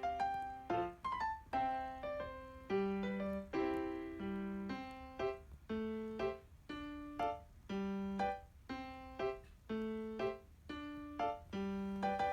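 Background music: a gentle piano melody with chords, notes struck in a steady, even rhythm.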